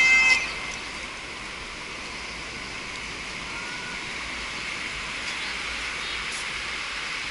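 Steady rushing wash of ocean surf on a sandy beach. Bagpipe music cuts off about half a second in.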